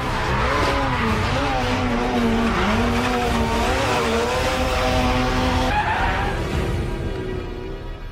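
Rally car being drifted hard on tarmac, its engine revving up and down as the tyres skid. The sound dies away near the end.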